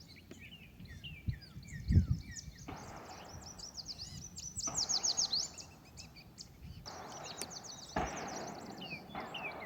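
Songbirds chirping and singing in rapid runs of short falling notes, with two low distant booms about one and two seconds in, the second the loudest: gunshots from people shooting across the swamp.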